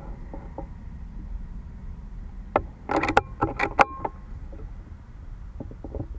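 A quick run of sharp mechanical clicks and clacks, about a second and a half long, from the air rifle being handled between shots. A steady low rumble runs underneath.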